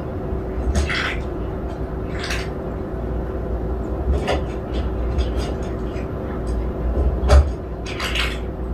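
Cats tearing and chewing sprouted barley cat grass: a few short, irregular crunching and rustling sounds over a steady low hum.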